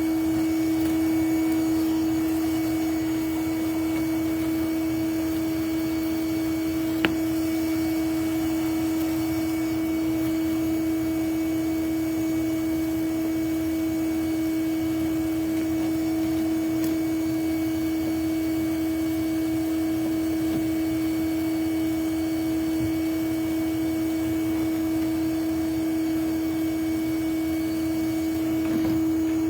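Bee vacuum running steadily, a constant even motor hum, with one sharp click about seven seconds in.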